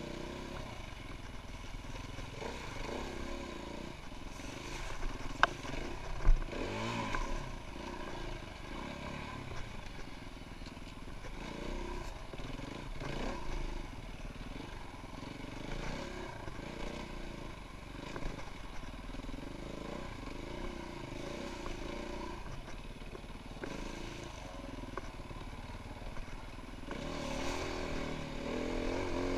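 Enduro dirt bike engine running with the revs rising and falling as it rides a rough trail, with a couple of sharp knocks about five and six seconds in.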